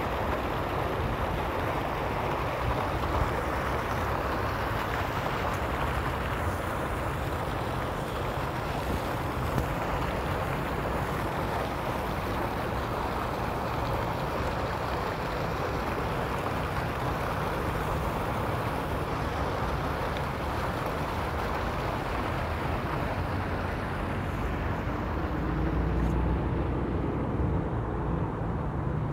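Fountain jets splashing steadily into a shallow pool, a constant rushing of water. Near the end the splashing fades and a low rumble of street traffic comes up.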